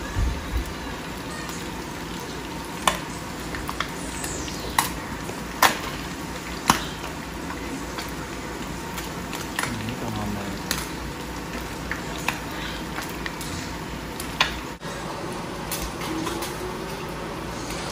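Crappie frying in hot oil in a wok: a steady sizzle, broken by sharp clicks of the spatula knocking against the pan as the fish is turned.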